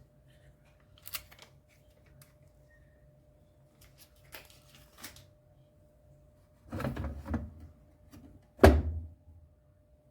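A few light clicks, then a cluster of knocks about seven seconds in and one louder thump near the end, like handling parts of an appliance by hand.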